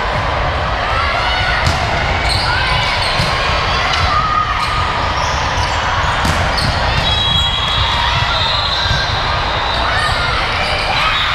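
Gym sounds during an indoor volleyball game: sneakers squeaking on the court floor, a few sharp ball hits, and a steady hum of crowd voices, echoing in a large hall.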